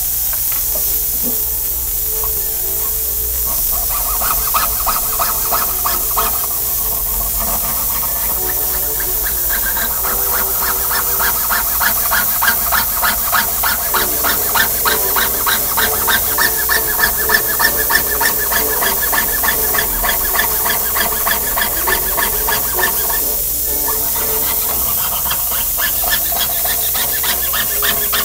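Jeweller's piercing saw cutting through thin metal sheet for a monogram pendant, in steady back-and-forth strokes that each carry a high ringing note, over a steady hiss. The strokes pause briefly near the end, then start again.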